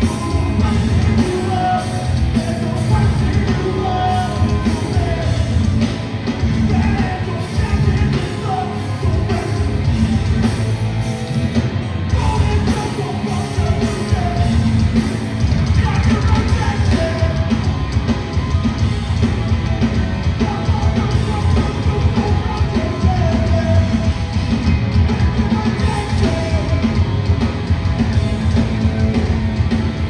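A hardcore band playing live and loud: drums, bass and guitars with a singer's voice over them.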